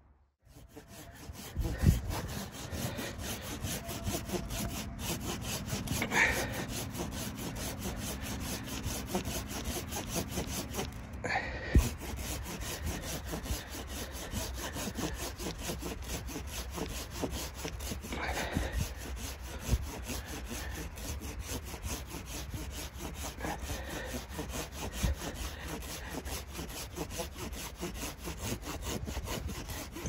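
Wood being sawn by hand with a saw, a steady run of back-and-forth strokes. Two sharp knocks stand out, about two and twelve seconds in.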